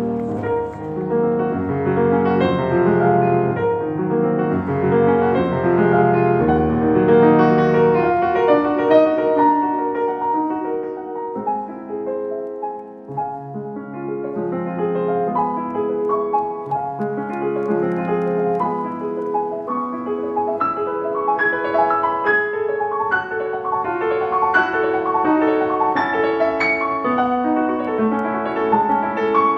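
Background piano music, a flowing melody of many notes that thins out a little around the middle and then builds again.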